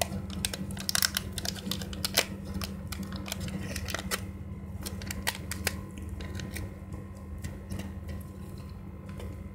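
Thin plastic crinkling and crackling as the peel-off seal of a Kinder Joy toy capsule is pulled back and the plastic-wrapped toy inside is handled: a quick run of small clicks that thins out after about six seconds, over a steady low hum.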